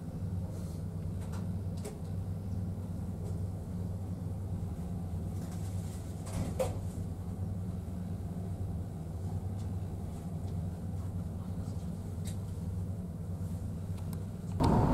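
Steady low drone of the ferry's engines and machinery, with a few faint clicks and one slight knock about six and a half seconds in.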